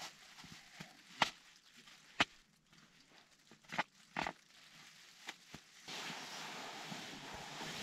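Crinkling and swishing of a puffer jacket as arms are pushed into its sleeves, with several sharp crackles about a second apart. About six seconds in, a steady rustling hiss sets in.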